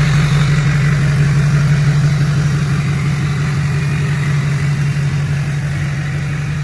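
Duramax V8 turbo-diesel engine running steadily with a low, even hum.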